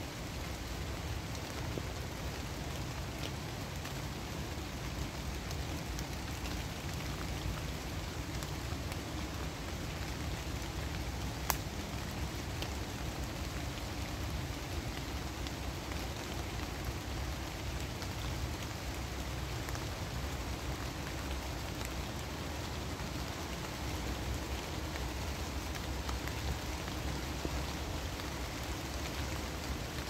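Steady rain falling on the leaves of a forest, an even hiss dotted with faint drop ticks. One sharp click stands out about eleven seconds in.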